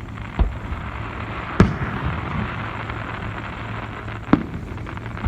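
Aerial fireworks shells bursting: three sharp bangs, the loudest about a second and a half in, followed by a couple of seconds of crackling.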